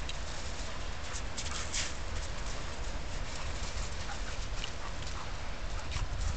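Two dogs, an Airedale terrier and a retriever, play-fighting on sand and shingle: scuffling paws and brief dog whines over a steady low rumble.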